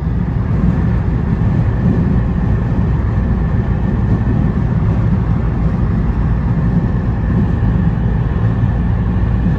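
Steady road and engine noise heard from inside a car cruising on a highway, a constant low rumble with no distinct events.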